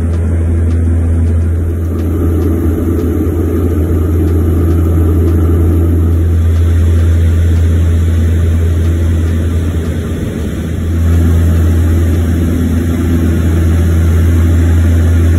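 Turboprop engines of a de Havilland Canada Twin Otter seaplane heard from inside the cabin as a loud, steady drone with a deep hum. The drone dips slightly about ten seconds in, then swells again.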